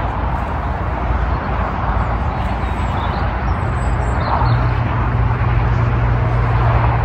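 Steady rush of traffic from a nearby motorway, with a low steady hum joining about halfway through.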